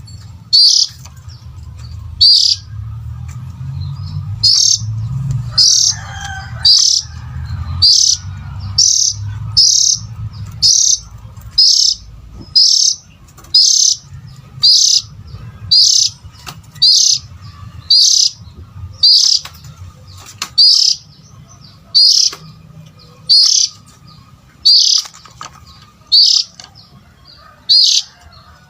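Oriental magpie-robin (kacer) giving one short, sharp call about once a second, over and over, over a low rumble.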